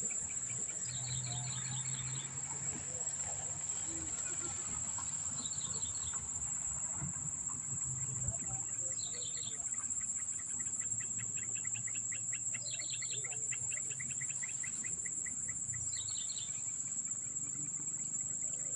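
Dusk chorus of insects: a steady, shrill high trill, with a second insect pulsing rapidly underneath and short chirping phrases repeating about every three to four seconds.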